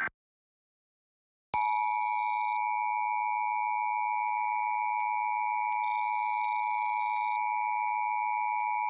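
The Emergency Alert System attention signal: a steady two-tone alert that starts about a second and a half in and holds unbroken. Just before it, the tail of the warbling digital SAME header burst ends right at the start, followed by a short silence.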